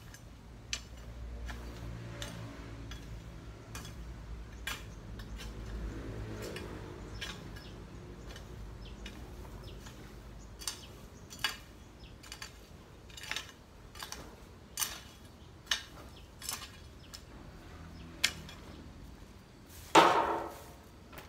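A long-handled garden tool scraping and knocking against the soil and stones, giving sharp clicks about once a second through the second half. Near the end comes one louder short pitched call.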